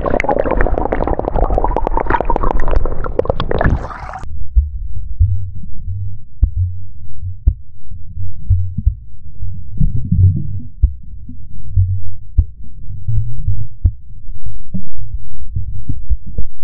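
Water sloshing and bubbling around an action camera held in a lake for about four seconds. Then the sound abruptly turns muffled, with only low thumps and rumbles as the microphone is fully underwater.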